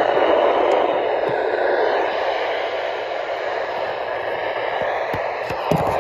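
Steady radio static hiss from a receiver between transmissions, with a few faint clicks near the end.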